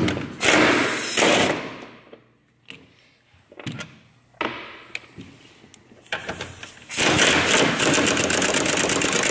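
Impact wrench with a 16 mm socket hammering loose the strut top-mount nuts: a rattling burst at the start, then a longer burst near the end, with a couple of light clicks of socket and nut in between.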